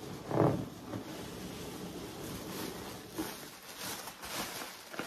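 Rustling and crinkling of packaging material as the next item is lifted out of the box and unwrapped, with a louder rustle about half a second in and brighter crinkles in the second half.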